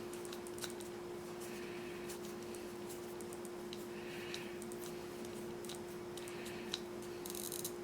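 Faint, scattered light clicks and taps from small plastic model-kit parts being handled and screwed together with a small screwdriver, over a steady low hum.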